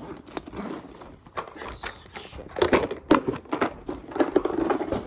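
Rustling, crinkling and light knocking of a soft fabric tackle bag and large Bass Pro plastic tackle trays being handled as a tray is pushed in sideways to see if it fits. The handling gets busier and louder about halfway through.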